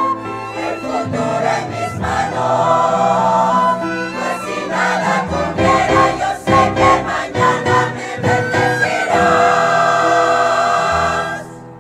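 Choir singing a sacred song with acoustic guitar accompaniment, with sharp strummed chords in the middle. It ends on a long held chord that cuts off near the end.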